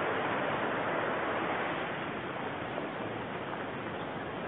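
Steady rush of river water, easing slightly about two seconds in.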